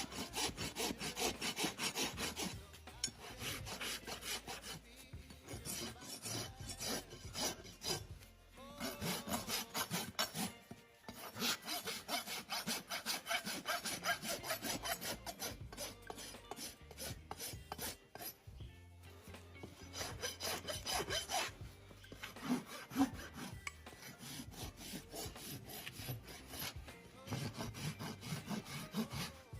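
Farrier's rasp filing a horse's hoof in quick back-and-forth strokes, in runs of a few seconds broken by short pauses.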